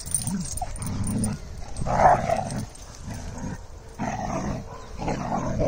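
Several dogs barking and growling as they scuffle, in short calls about once a second; the loudest comes about two seconds in.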